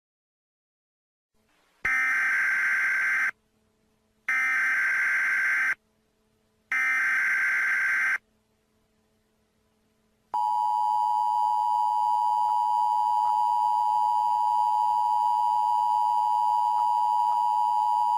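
Emergency Alert System broadcast alert. It opens with three buzzy bursts of digital header data, each about a second and a half long and separated by short gaps. About ten seconds in, the steady two-tone attention signal begins and holds until the end.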